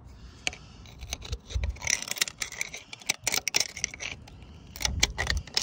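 Metal scraping and irregular clinking as the old bearing housing, cut with a burr grinder, is worked out of the Case 580B backhoe's front axle spindle bore.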